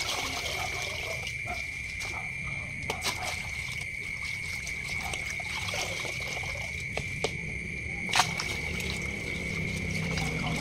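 Water trickling and dripping out of a plastic colander of small washed fish into a plastic basin, with a few short clicks as the colander is handled.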